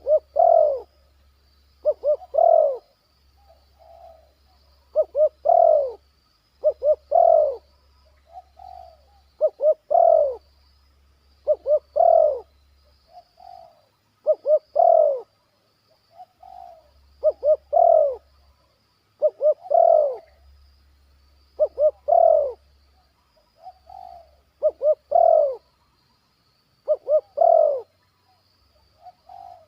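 Spotted dove (tekukur) cooing over and over: each phrase is two or three short notes and a longer falling coo, about every two and a half seconds, with softer single coos in between.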